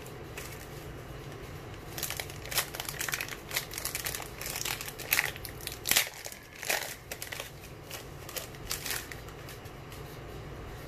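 Foil wrapper of a Panini Select baseball card pack crinkling as it is torn open and pulled apart by hand, a run of sharp crackles from about two seconds in until near the end, over a steady low hum.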